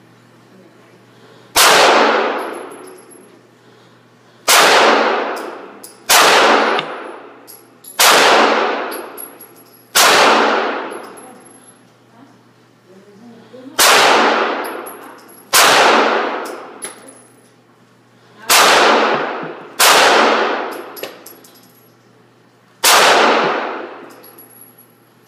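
Springfield XD 9mm pistol fired ten times at a slow, uneven pace, one shot every one and a half to four seconds. Each sharp report rings off the walls of the indoor range and fades over about a second.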